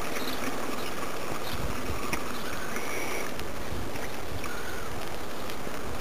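Steady rushing wind and riding noise on the microphone of a camera mounted on a slowly moving motorcycle, with no clear engine note; a few faint short high chirps sit above it.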